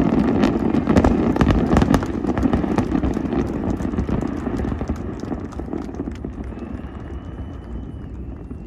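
Aerial fireworks crackling and booming in quick succession over a heavy rolling rumble, thinning and dying away over the last few seconds.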